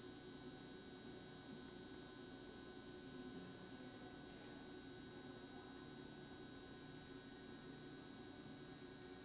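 Near silence: a faint, steady electrical hum of room tone, several even tones held without change.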